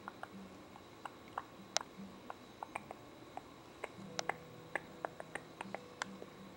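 Faint, irregular clicks and ticks, a few each second, over a quiet low hum that comes and goes.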